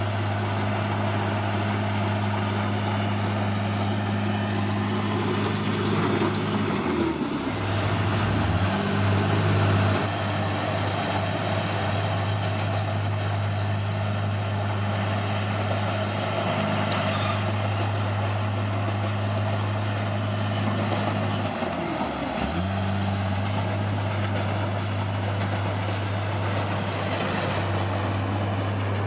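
Caterpillar D6R bulldozer's diesel engine running steadily at working revs, its note dipping briefly as it takes load about a quarter of the way in, with a louder stretch after, and again about three quarters through.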